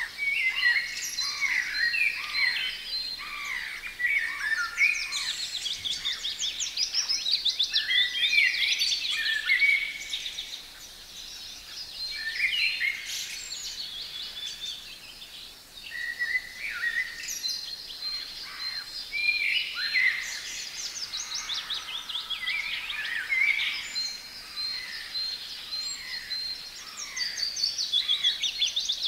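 Several songbirds singing at once in an overlapping dawn-chorus-like mix of varied phrases, trills and sliding whistles. One bird repeats a short high note in steady series, several times a second.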